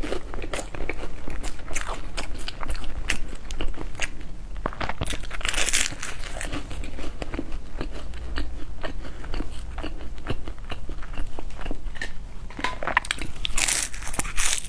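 Close-miked biting and chewing of a flaky-crusted egg tart: a run of crisp, crackly crunches and mouth sounds, with louder crackling bursts about six seconds in and near the end.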